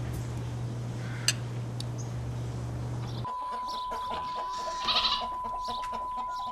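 A low steady hum over faint background noise, with a single click about a second in. A little past three seconds, a steady 1 kHz line-up test tone for colour bars cuts in and holds one pitch, with a brief fluttery noise under it about five seconds in.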